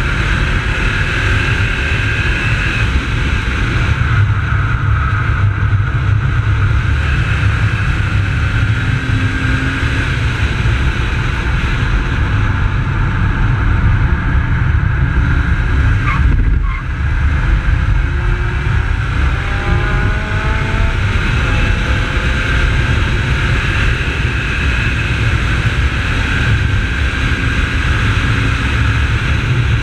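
Holden VY Commodore's 3.8-litre V6 running hard at track speed, heard through heavy wind rumble on an outside-mounted camera along with tyre noise. The sound dips briefly about halfway through, then the engine note climbs.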